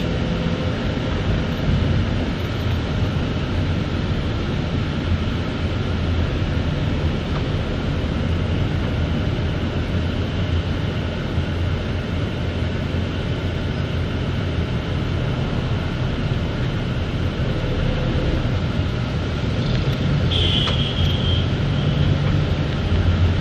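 Steady engine and road rumble heard from inside a moving vehicle's cabin, with a brief high beep near the end.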